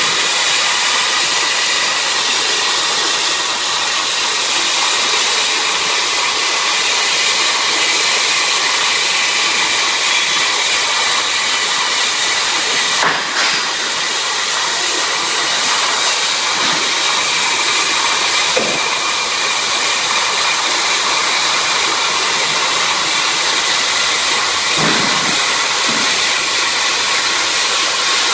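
CNC plasma cutter torch cutting metal: a loud, steady hiss of the plasma arc and air jet, with a faint high whine and a few short sharp ticks.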